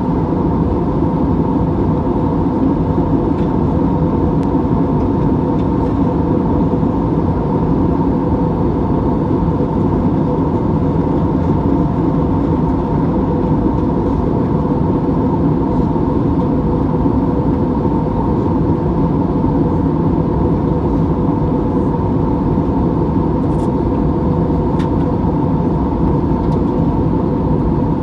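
Steady cabin noise of an Airbus A320-family airliner in cruise flight: the jet engines and the rush of air past the fuselage, heard from a window seat, with a steady hum running through it.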